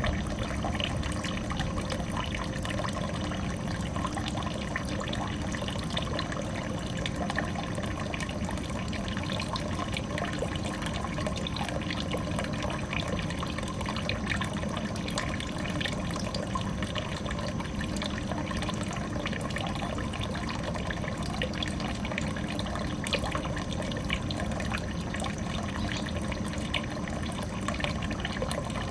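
Water falling and flowing into a biotope pond, splashing and trickling steadily without a break.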